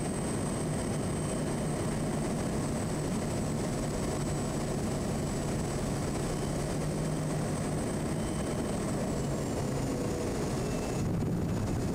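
Quest Kodiak 100's Pratt & Whitney PT6A turboprop engine and propeller running steadily at approach power, heard from the cockpit, with a thin high whine over it that drops a little in pitch about nine seconds in.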